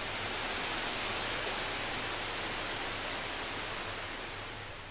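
A steady rushing hiss that eases off near the end.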